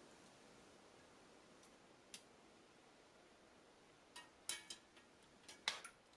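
Light metallic clicks and clinks of metal tongs against a casserole pot and a stainless bowl: one about two seconds in, then a quick cluster of several in the last two seconds, over near-silent room tone.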